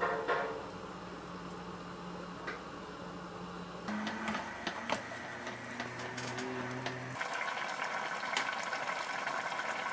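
Quiet kitchen sounds: a pot of stroganoff sauce on the stove being stirred with a wooden spoon, with a single click about five seconds in. The background changes abruptly twice, from a faint steady hum to a faint hiss.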